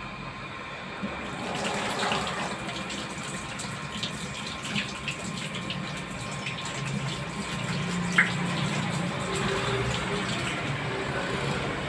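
Tap water running into a stainless-steel kitchen sink while hands are washed under it, with a couple of small knocks.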